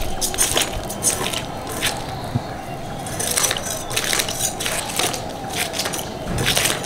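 Scales being scraped off a whole rohu fish against the upright curved blade of a boti. It makes a series of short, rasping scrapes at uneven intervals.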